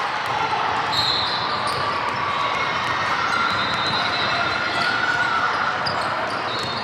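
Basketball game sound in a gym: a ball bouncing on the hardwood court, with brief high squeaks, likely sneakers, over a steady background of spectator chatter.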